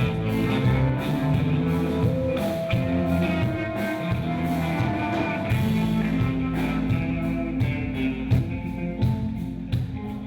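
Rock music: a band playing, with guitar, bass and drums.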